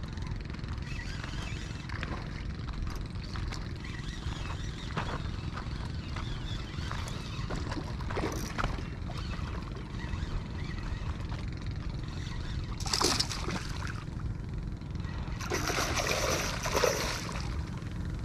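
Hooked barramundi splashing and thrashing at the water's surface while being fought on a lure rod, in two bursts near the end, the second longer and louder.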